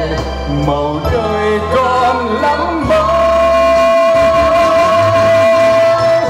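Live band music with a singer's voice, a wavering melody that settles about halfway through into one long held note.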